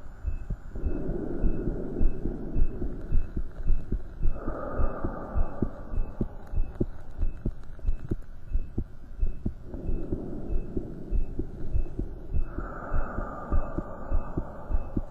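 Heartbeat heard through a stethoscope on the chest during exercise: rapid, strong beats several times a second. A rushing noise swells in and fades out every few seconds behind the beats.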